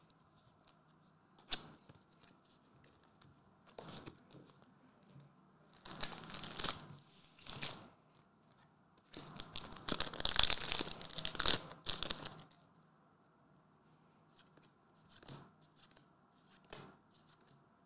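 Trading cards and paper being handled by hand: scattered rustles and a click, with a longer, louder crinkling, tearing-like stretch about halfway through.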